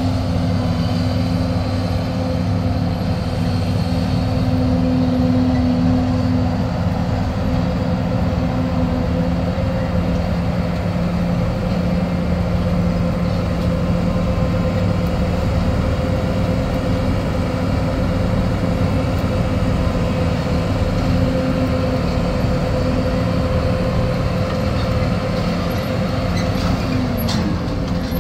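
Combine harvesters running steadily in the field, a loud, even machine hum with a constant engine note.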